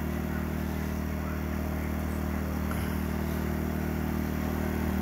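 Steady low hum of the electric blower fan that keeps an inflatable arch inflated, running without change.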